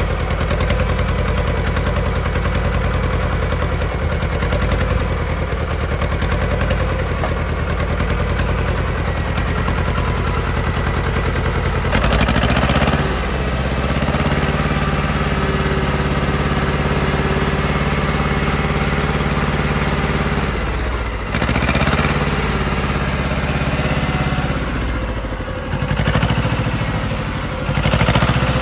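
Komatsu International 242 tractor's diesel engine running just after starting without glow-plug preheating. It runs steadily, then its speed rises about halfway through and holds, drops back, and picks up briefly twice more near the end.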